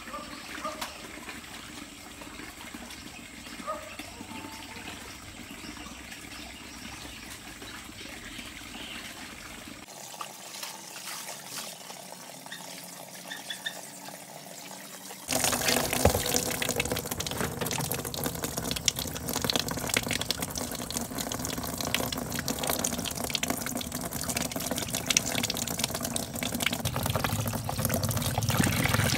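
Tap water from a plastic water tank running into a plastic washbasin, starting suddenly about halfway through and then running steadily and loudly. Before that, only a quiet background with a few faint chirps.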